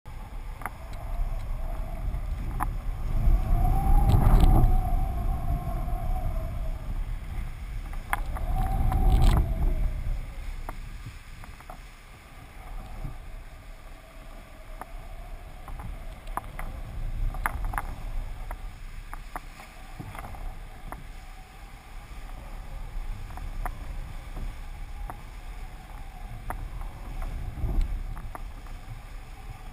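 Wind rushing over a camera mounted on a kitesurfing kite, swelling loudly twice in the first ten seconds, with a hum that rises and falls with the gusts and occasional short ticks.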